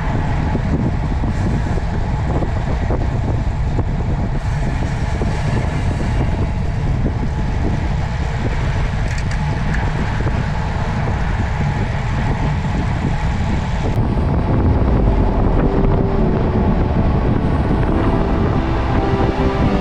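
Steady rush of wind over the microphone and vehicle noise while riding. Background music comes in about two-thirds of the way through.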